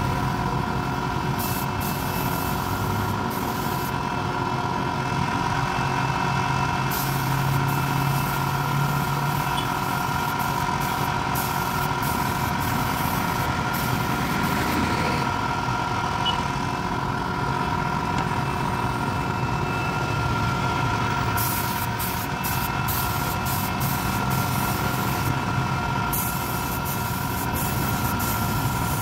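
Air compressor running steadily with a constant hum and whine, and an intermittent hiss of compressed air from a spray gun, mostly in the last third.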